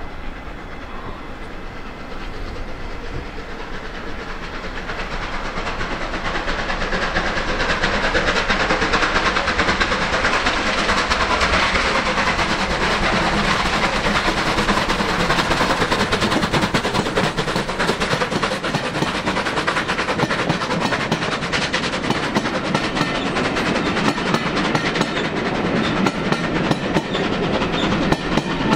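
Steam locomotive 35028 Clan Line, a rebuilt Bulleid Merchant Navy class three-cylinder Pacific, running through the station at the head of a train of Pullman coaches. The sound grows louder over the first several seconds as the train draws near, then stays loud as the coaches roll past with a rapid clickety-clack of wheels over the rail joints.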